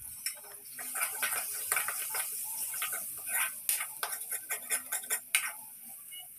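Steel ladle scraping and clinking against a metal kadhai at an irregular pace while onion paste, garlic and green chillies are stir-fried in oil, over a steady sizzle.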